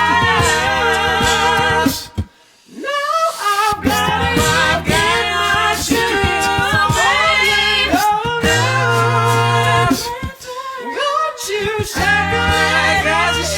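Five-voice a cappella group singing in layered harmony over a sung bass line, with sharp rhythmic percussive hits keeping the beat. The voices cut out briefly about two seconds in, then come back in.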